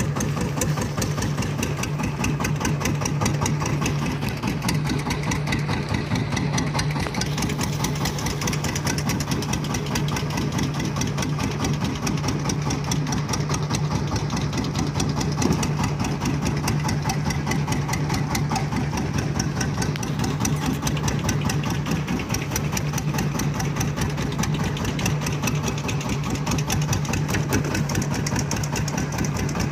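Fishing boat's engine running steadily with a fast, even beat.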